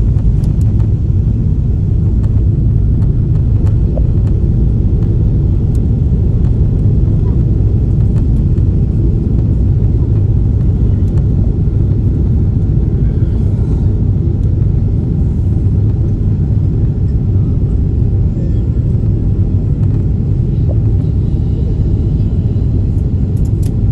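Steady low rumble of jet engines and rushing air inside an airliner cabin during the descent to landing.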